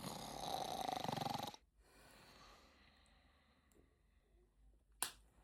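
A person snoring loudly on one long raspy breath that cuts off abruptly after about a second and a half, followed by near quiet and a single sharp click near the end.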